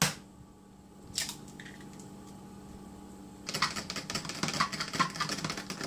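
A sharp knock at the start and another about a second in, then from about three and a half seconds in a fork beating raw eggs in a plastic container: fast, uneven clicking of the metal tines against the container.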